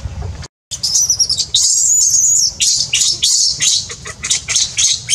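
Baby macaque crying in high-pitched screams: one long wavering wail about two seconds in, then a run of short sharp squeals, after a brief cut-out near the start.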